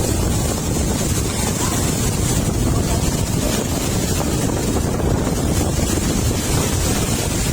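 Summer-storm wind buffeting the microphone, a steady rushing roar with a high hiss of heavy rain over it.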